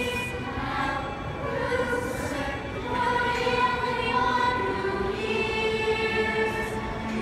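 Youth choir of children and teenagers singing a musical-theatre song together, holding long sung notes.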